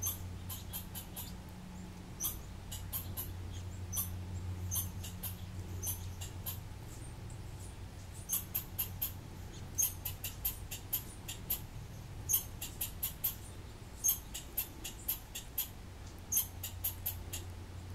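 Sharp, high-pitched chips and squeaks from a small animal, coming in quick clusters of several per second and growing busier in the second half, over a steady low hum.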